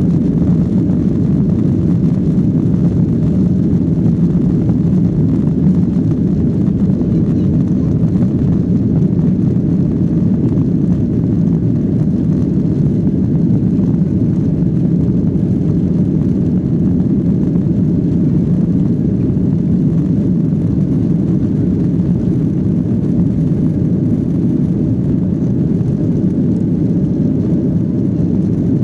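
Steady, loud low rumble of jet engines heard from inside an airliner's passenger cabin.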